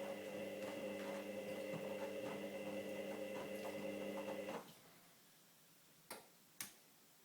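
Candy Grando washing machine's drum motor running with a steady hum and faint ticking during a slow wash tumble, stopping abruptly about four and a half seconds in, followed by two sharp clicks about half a second apart.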